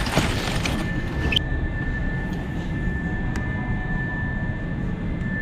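Steady low rumble with a thin constant high-pitched hum. A hissy noise over it stops abruptly about a second and a half in, and there are a few faint clicks later.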